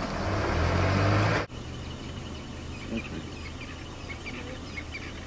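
Car engine running, growing louder with a rushing noise for about a second and a half, then cutting off suddenly to a quieter steady low hum. Faint bird chirps come through over the hum.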